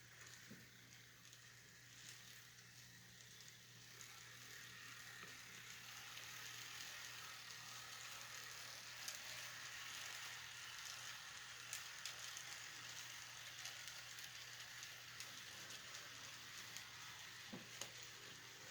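N scale model diesel locomotives running on track: a faint high whir and hiss from the small motors and wheels, with scattered light clicks, growing louder about four seconds in. A steady low hum lies underneath.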